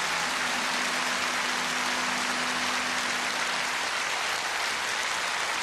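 A large open-air audience applauding, a dense steady clatter of many hands. A faint low steady tone beneath it stops about four seconds in.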